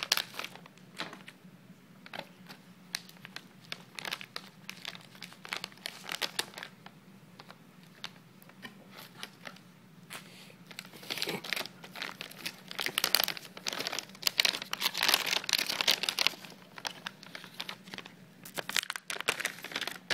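Anti-static bag and bubble-wrap packing crinkling and crackling as they are handled, in scattered bursts that get busier and louder about halfway through.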